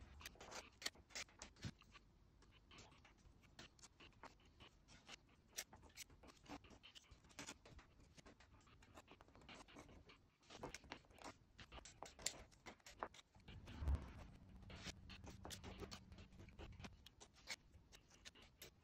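Faint, irregular scraping and ticking of a craft-knife blade on plaster moulding as a joint is trimmed and cleaned.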